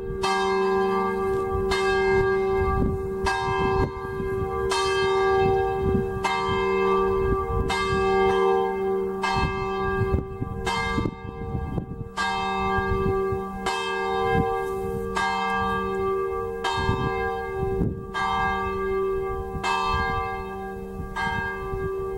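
Church bells of a five-bell ring tuned G3–A3–B3–C4–D4, swung electrically in the Veronese style and ringing together in a full peal. Strikes come at about one and a half a second in a shifting order of pitches over the sustained ring of the bells. Strong wind rumbles on the microphone underneath.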